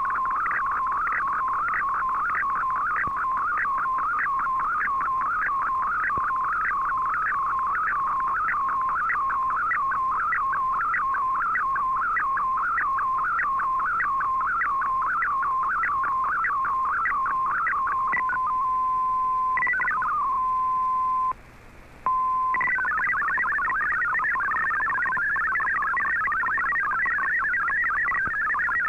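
Shortwave receiver audio of the Shortwave Radiogram digital broadcast: the MFSK image transmission, a wavering tone sweeping in a fast regular pattern, ends about 18 seconds in and falls to a single steady tone. After a brief drop-out, the MFSK64 text data starts about 23 seconds in as a dense warbling cluster of tones.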